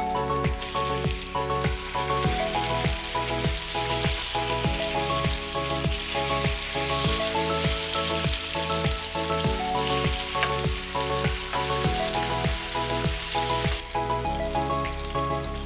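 Masala-coated fish pieces shallow-frying in hot oil in a pan, a steady sizzle, under background music with a steady beat.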